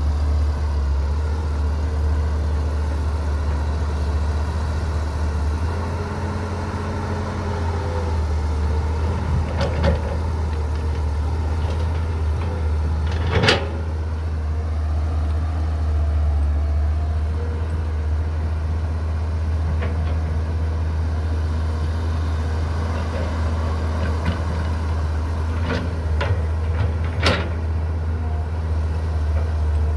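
Steady low diesel drone of a Cat 320 GC excavator at work, with a dump truck's engine close by. A few sharp knocks cut through it, the loudest about halfway through and again near the end.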